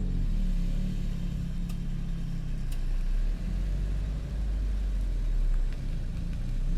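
Car engine running with a low rumble, its revs dropping right at the start.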